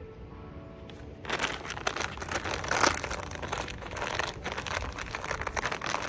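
Plastic snack bag crinkling as it is handled close to the microphone, starting about a second in and going on in irregular crackles.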